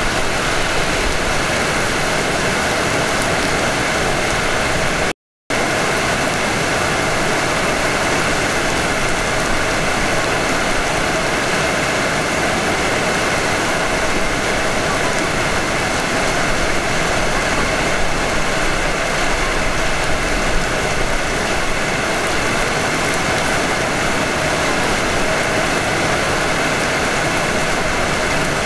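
Steady noise of a Hanshin 5500 series electric train heard from the front of the train. The sound cuts out completely for a moment about five seconds in.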